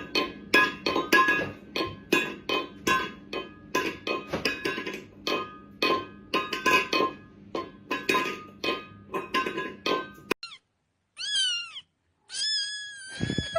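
Rhythmic music of plucked or struck notes, about two beats a second, which stops abruptly about ten seconds in. Then a cat meows: two short, falling meows, followed by one long, held meow.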